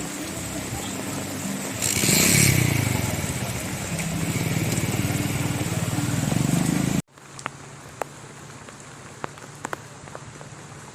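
A motor vehicle's engine running close by, swelling about two seconds in. It cuts off abruptly about seven seconds in, leaving a quieter background with scattered sharp ticks.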